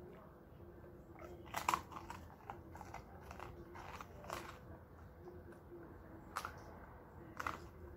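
An Irish Setter crunching and chewing the bones of a whole chicken: a cluster of loud crunches about a second and a half in, then single crunches every second or two.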